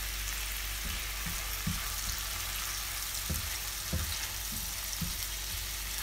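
Chopped onion and garlic sizzling steadily in a frying pan with white wine, while a silicone spatula stirs, giving a few soft scrapes and knocks against the pan, the firmest a little past the middle.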